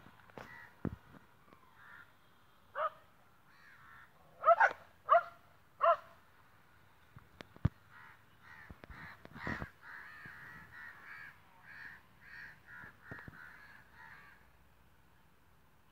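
Crows cawing: a few loud caws in the first six seconds, then a run of fainter, quicker calls. Bumps and rustles from a bag handled close to the microphone fall between them.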